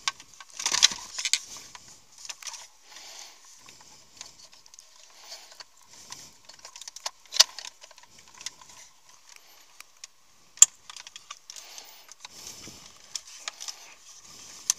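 Plastic clicks and rustling of wiring and dashboard trim as the climate control panel's M50 wiring connector is plugged in and the panel handled and pressed into the dash. Two sharper clicks stand out, about halfway and about two-thirds of the way through.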